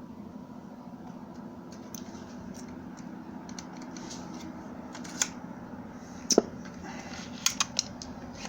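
Sharp metallic clicks and clacks of a gun being worked by hand, scattered through the second half over a steady low hum: clearing a round that failed to fire, which the shooter takes for a bad bullet.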